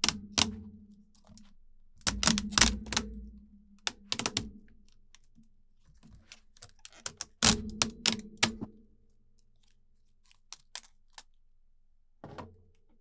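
Rivets holding a MacBook Pro A2442 keyboard into its top case snapping as the keyboard is pried and peeled away: clusters of sharp clicks and cracks, thickest about two, four and seven to eight seconds in, then thinning to a few faint ticks and a last click near the end.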